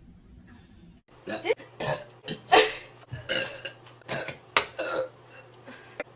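A girl burping, a rapid run of short burps after a quiet first second, the loudest about two and a half seconds in.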